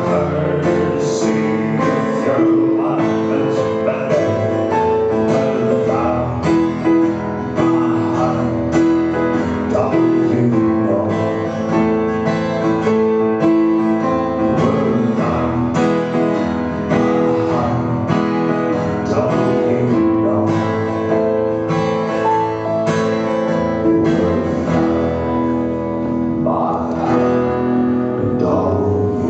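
Band playing an instrumental passage led by plucked guitar, with held notes sounding underneath.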